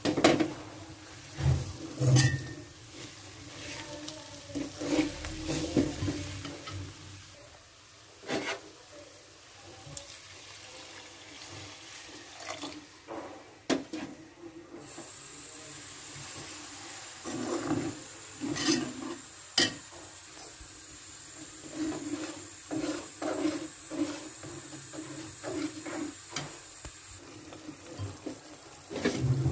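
Steel spoon clinking, knocking and scraping in an aluminium cooking pot as spice powders and onion paste are stirred together with liquid, with some sloshing and a few heavier knocks of the pot.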